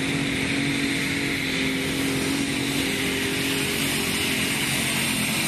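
Unlimited Super Stock pulling tractor's multi-turbocharged diesel engine running steadily at the line before a pull, with no revving.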